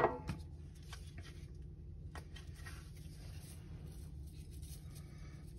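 Seasoning shaken from a shaker onto a frozen beef roast: a faint rattle of granules and light patter, with a few soft clicks, over a steady low hum.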